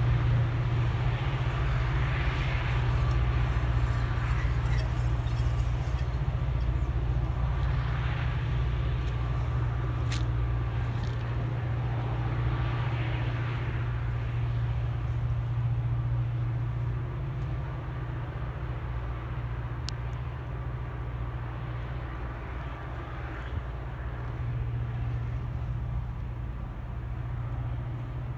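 Diesel locomotives of a heavy oil train working hard up a grade in the distance: a steady low drone that slowly fades as the train pulls away.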